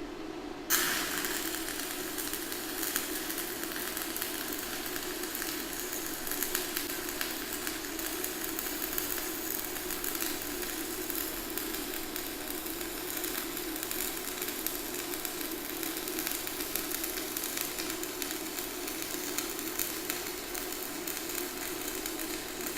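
Stick-welding arc from a PRO-TEC 160S welder at 110 amps, burning a 1/8-inch 6013 general-purpose electrode. The arc strikes with a sharp crack under a second in, then burns with a steady crackle.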